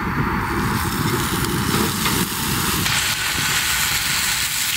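Thin slices of oxtail beef sizzling on a hot griddle over a wood-burning stove: a steady frying hiss as the meat is laid down and sears.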